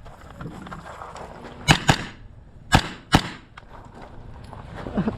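Four gunshots fired in two quick pairs during a timed shooting stage, the pairs about a second apart.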